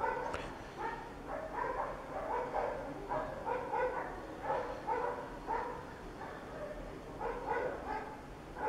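A dog barking over and over, about two to three barks a second, with a single sharp click just after the start.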